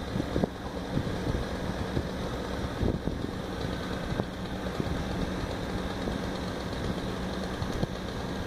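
Engine of a boom-type aerial work platform running steadily at a low, even speed, with scattered short knocks over it.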